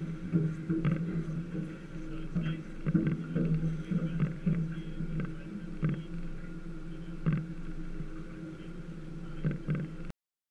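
Boat engine idling steadily, with irregular knocks and clicks over it.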